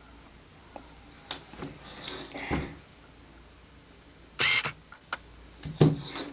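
Handling noises: scattered clicks and soft rubbing as small devices and their cases are handled, with a louder rustling burst about four and a half seconds in.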